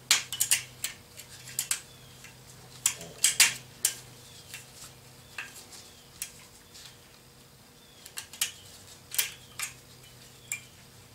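Irregular light metallic clinks and taps as a metal head gasket is handled and fitted over the studs on top of a Yamaha Blaster two-stroke cylinder. A faint steady hum runs underneath.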